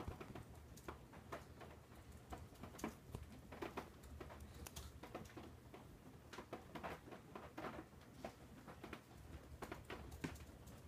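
Faint, irregular taps, scratches and rustles of cats batting and clawing at a wand toy over fabric.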